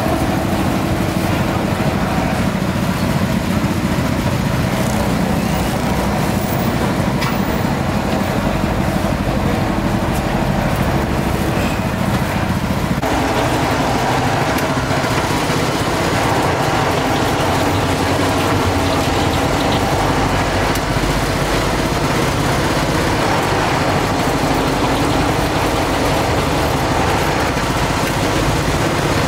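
Steady street traffic noise at first; about halfway it changes abruptly to an electric sugarcane juice press running steadily, its rollers crushing cane stalks as they are fed through.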